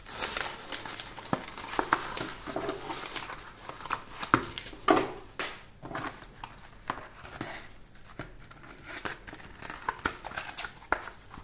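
Paper wrapping and a cardboard box crinkling and rustling as a parcel is unwrapped by hand, with irregular sharp crackles and a few taps as the box is handled; busiest in the first half.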